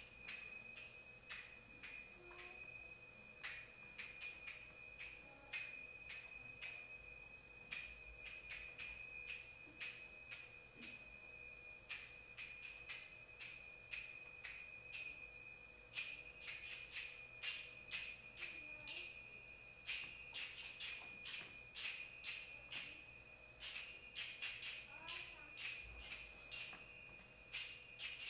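Finger cymbals (zills) struck in quick rhythmic phrases, each strike ringing out; a new phrase starts about every four seconds, and the strikes come denser from about halfway through.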